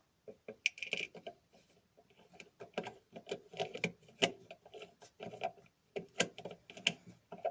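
Irregular small metal clicks and taps of a hand tool working a retaining screw into the carbon brush holder of a washing machine motor.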